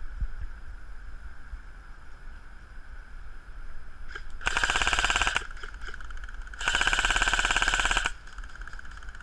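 Two bursts of full-auto fire from an airsoft electric gun, a G&P Stoner 63 light machine gun, each a rapid rattle of shots: the first about a second long starting about four and a half seconds in, the second about a second and a half long.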